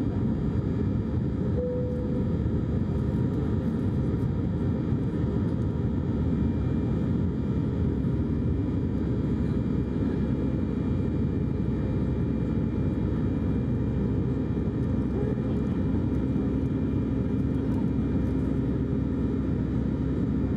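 Steady low rumble of an Airbus A320's engines and rushing air, heard from inside the cabin as the airliner climbs after take-off.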